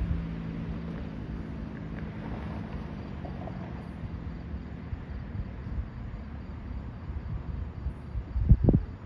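Outdoor night ambience: wind rumbling on the microphone over faint, steady cricket chirping, with a low hum that fades out about three seconds in. Two loud low thumps near the end.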